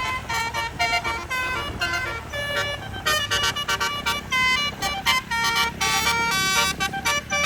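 Bus telolet horn, a set of 18 electric air-horn trumpets, playing a fast melody: notes change several times a second, often several sounding together as chords, over a low engine rumble.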